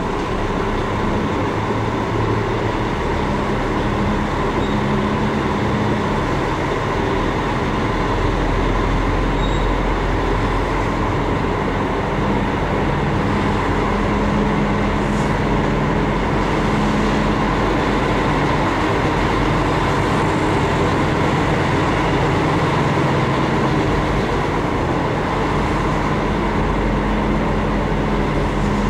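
HGV lorry's diesel engine running steadily at low speed, heard from inside the cab as a constant low hum with road noise.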